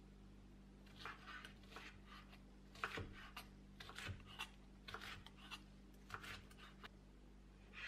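Chef's knife dicing yellow bell pepper on a wooden cutting board: faint, irregular chopping strokes of the blade through the pepper onto the board, in small clusters, the loudest about three seconds in.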